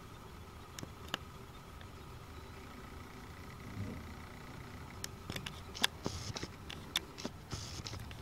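Handling noise from a hand-held camera: light clicks and brief rustles over a faint steady hum, with the clicks coming thicker in the last few seconds.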